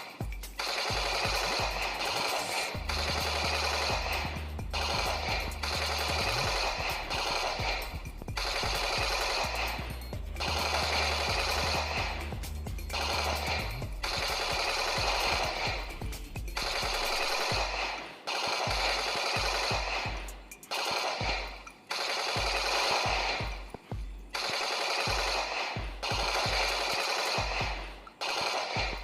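Battery-powered toy guns playing electronic machine-gun sound effects in repeated bursts of a few seconds each, with short breaks between them.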